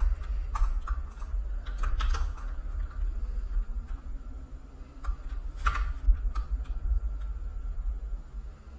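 Irregular clicks and taps on a computer keyboard, in two loose clusters, over a low steady hum.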